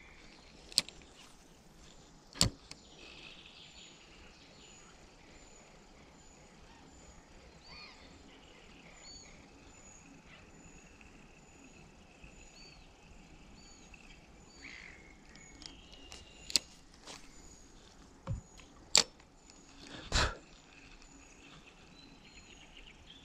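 Sharp clicks and knocks from a spinning rod and reel being handled close to the microphone, about six in all, loudest a couple of seconds in and again near the end. Underneath, a faint steady outdoor background with a regular high chirping, about one and a half chirps a second.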